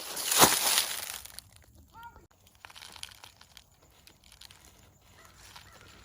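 Loud crinkling, crumpling rustle for the first second and a half, then fainter scattered rustles, with a short high voice-like call about two seconds in.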